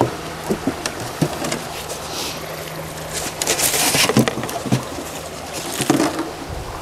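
Rustling and knocking of gear being packed by hand into a tote bag, with short clicks throughout and the loudest rustle a few seconds in. A faint steady low hum lies underneath and stops about two-thirds of the way through.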